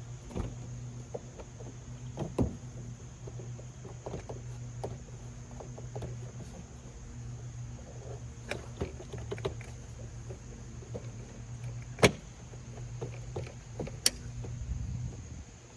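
Plastic side skirt and its push clips being pulled off a car body by hand: scattered clicks and rattles, with sharp snaps about 2 s in and twice near the end, over a steady low hum.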